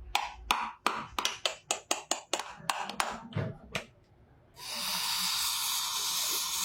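A quick, irregular run of sharp taps or knocks, several a second, then after a short pause a steady loud hiss starts and holds.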